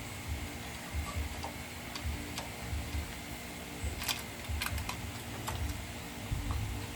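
Scattered light clicks and taps from small parts being handled during generator maintenance, the strongest about four seconds in, over a low uneven rumble and a faint steady hum.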